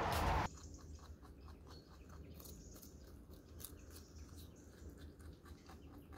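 A rushing noise cuts off abruptly about half a second in. After it, a domestic rabbit bites and chews a raw carrot: faint, irregular crunching clicks.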